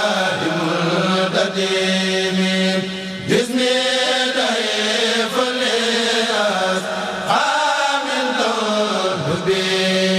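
Religious chanting: a voice sings long, held notes that slide slowly up and down, over a steady low hum.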